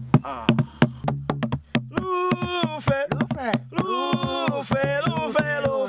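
Music: a beat of sharp percussive clicks over a steady bass note, with a singing voice coming in about two seconds in.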